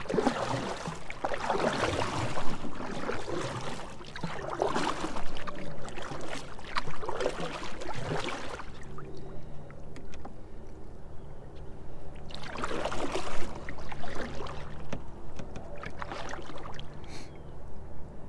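Canoe paddle strokes through river water: splashing and dripping as the blade dips and pulls, about five strokes a few seconds apart with a longer pause midway.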